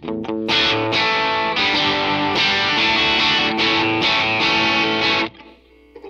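Semi-hollow Telecaster-style electric guitar played with some drive through a guitar amp or amp modeler: a run of strummed chords that stops suddenly about five seconds in, leaving the notes to fade.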